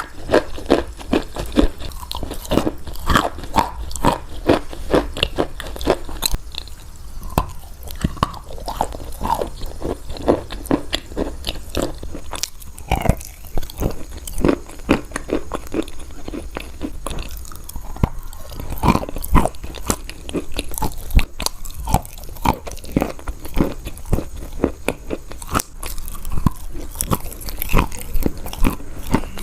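Close-miked biting and chewing of crunchy chalk: a dense run of sharp cracks and crumbling crunches, with a louder bite every second or two.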